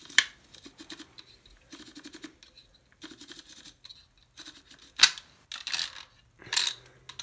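A wooden pencil being fed through a crimper and crushed, crunching and scraping in short repeated bursts as it goes in. Several loud sharp cracks near the end as the wood and lead break apart.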